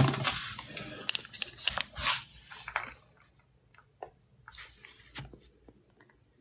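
Close rustling and clicking handling noises that fade out after about three seconds, followed by a few faint clicks.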